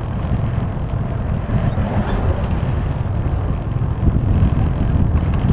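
Vehicle travelling over a rough road of sand and fine gravel: a steady low rumble of engine and road noise, growing a little louder about four seconds in.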